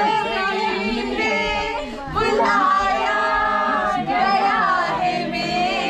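Several voices singing together, holding long notes.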